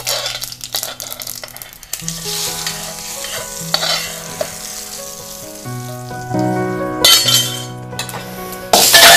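Hot oil with mustard seeds sizzling and crackling as a spoon scrapes the tempering out of a kadai into a bowl of curd, loudest about seven seconds in and again near the end. Background music with held notes that change pitch every second or so runs underneath from about two seconds in.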